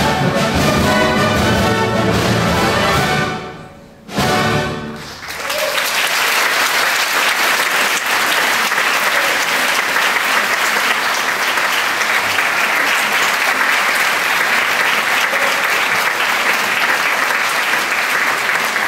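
A theatre orchestra plays the last bars of a ballet dance and ends on a short chord about five seconds in. Audience applause follows and holds steady.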